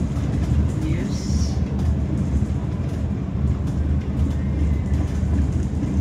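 A moving bus's engine and road noise, heard from inside the cabin as a steady low rumble.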